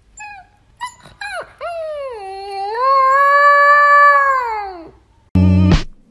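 Husky-type puppy howling: a few short yips, then one long howl that dips, rises and holds before trailing off. Loud music with a heavy beat starts near the end.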